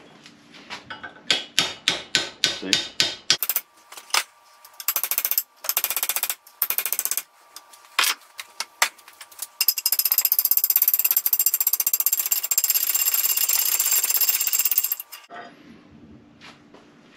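About a dozen sharp hammer blows on steel, then short bursts and a steady five-second run of a rapid-hammering power tool that stops abruptly. They are driving a split seal ring off a finish-mower spindle shaft.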